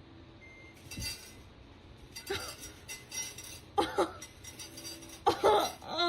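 A cat meowing several short times, ending in a louder, longer meow that falls in pitch near the end, with a light clink about a second in.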